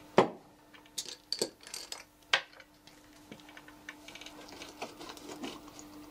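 Small glass bottle handled and opened at a table: a few sharp clinks and taps in the first two and a half seconds, then lighter ticking, over a faint steady hum.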